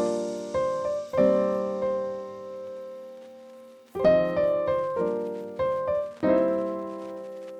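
Background piano music: gentle chords and single struck notes that ring and decay, in short phrases, fading out near the end.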